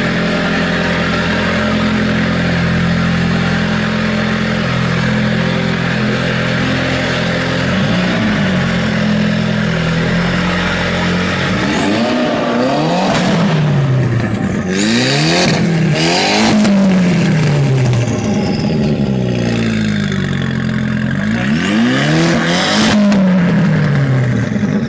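Audi TT engine exhaling through a newly installed aftermarket downpipe. It idles steadily, then from about eight seconds in is revved repeatedly, the pitch climbing and falling back with each blip.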